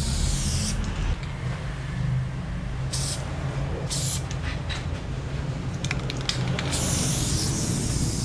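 Aerosol spray paint can hissing in bursts as paint is sprayed onto a wall: a spray at the start, two short puffs about three and four seconds in, and a longer spray from about seven seconds. A few quick clicks come about six seconds in, with a low rumble underneath throughout.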